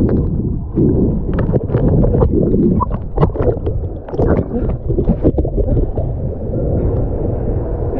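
Muffled underwater rumbling and bubbling around a camera held by a swimmer in a swimming pool, turning into water splashing and sloshing as the camera breaks the surface about four seconds in.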